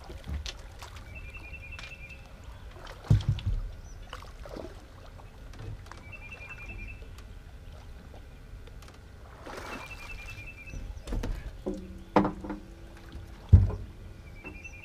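A camera beeping: a short train of high beeps repeats about every four seconds. The fisherman took the beeping to mean the camera had cut off, but it was still filming. Between the beeps come knocks and thumps from gear being handled in the aluminum boat, the loudest near the end.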